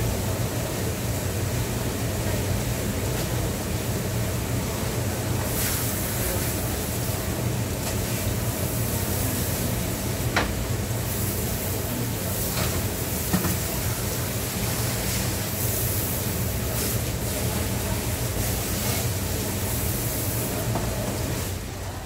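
Steady mechanical hum with an even hiss behind it, with a couple of light knocks about ten and thirteen seconds in.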